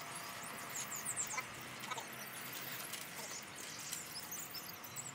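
Small birds chirping in the surrounding bush: many short, high calls overlapping, with no one event standing out.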